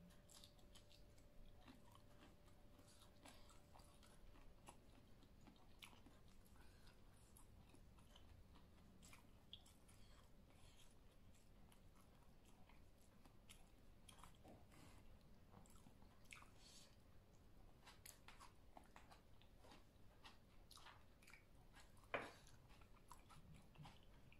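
Faint close-up chewing of a person eating a Thai spicy salad of shrimp, pork sausage, tomato and noodles: soft wet mouth clicks and smacks scattered irregularly, with one sharper click near the end.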